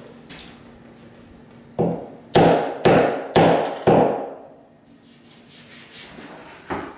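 A hammer tapping five times on a drywall wall, about two strikes a second. It is knocking the raised, chipped edge around a pulled nail's hole flush with the wall so it can be spackled smooth.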